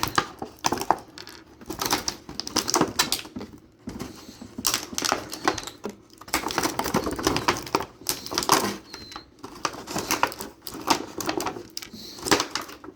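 Irregular plastic clicks, taps and short rustles from handling a plastic action figure and its packaging tray.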